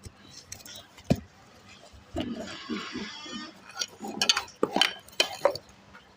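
Items being handled and set down while a mini fridge is rearranged: a sharp knock, a rustle, then several light clinks and taps.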